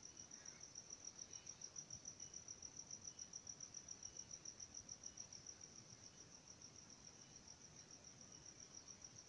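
A cricket chirping faintly in a steady high trill, about ten pulses a second.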